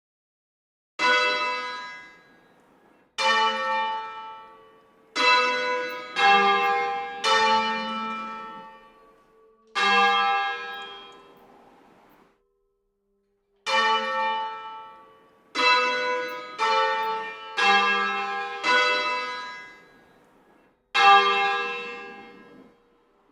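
Church bell strikes from a sampled virtual bell library, about a dozen single strokes at uneven intervals, each ringing out and fading over a second or two, with a longer pause about halfway through.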